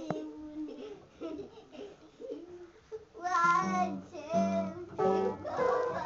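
Upright piano played by young children: a single struck note rings out at the start, then from about three seconds in a run of loud notes in a rough rhythm, with a child's voice singing along.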